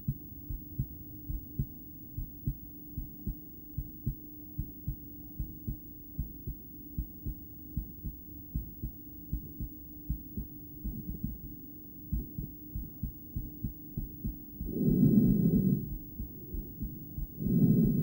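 A woman's heartbeat heard through a stethoscope on the chest: a steady, regular run of soft low thumps over a faint steady hum. About 15 seconds in and again at the very end, a loud burst of breathing noise about a second long covers the beats.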